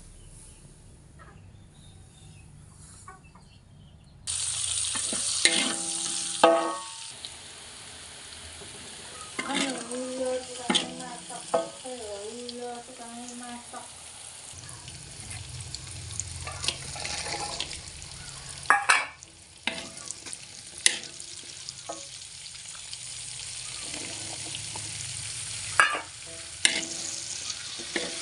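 Food frying in hot oil in a pan, the sizzle starting suddenly about four seconds in, with repeated knocks and scrapes of a spatula stirring it.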